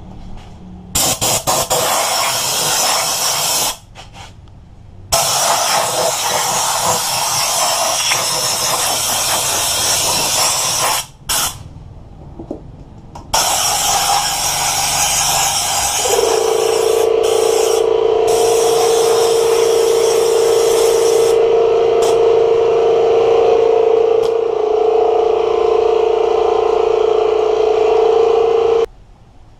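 Compressed air hissing from a blow gun fed by an air compressor, blowing dirt out of a motorcycle stator housing before it is fitted. It comes in long blasts with short breaks about 4 and 11 seconds in, then one continuous blast, with a steady tone joining in about halfway through.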